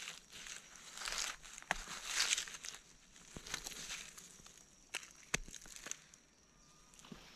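Dry fallen leaves crunching and rustling as a mushroom is pulled from the leaf litter and handled, with a few sharp clicks.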